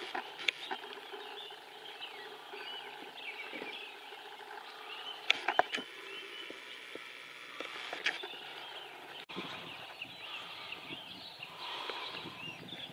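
Deer stags' antlers clacking together in a few sharp knocks, the loudest a quick cluster of three or four about five seconds in, over a steady chorus of small birds chirping.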